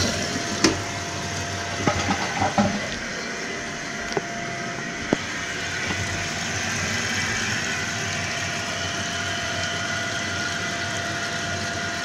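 Glacier Bay dual-flush one-piece toilet tank refilling after a flush: water hissing steadily through the fill valve with a faint steady whistle, and a few light clicks in the first few seconds.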